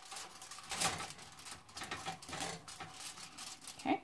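Aluminium foil crinkling and rustling in irregular bursts as hands rub olive oil over halved spaghetti squash and shift the halves on a foil-lined baking tray.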